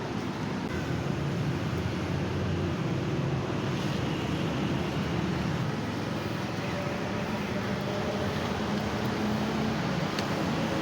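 Steady traffic noise from a street, with the hum of passing motor vehicles.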